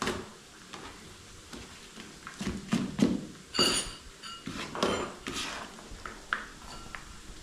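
Uneven kitchen clatter: a kitchen knife and utensils knocking on a cutting board and dishes, one clink ringing briefly about three and a half seconds in.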